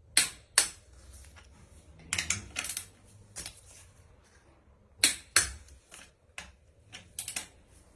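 Click-type torque wrench giving sharp clicks, several of them in pairs about half a second apart, as bolts reach their 60 Nm torque setting.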